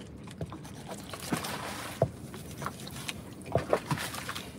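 Fillet knife scoring slices into the side of a whole scaled fish on a wooden cutting board to ready it for grilling: scattered short clicks and taps as the blade cuts through skin and knocks the board, the strongest about halfway through and again a little later.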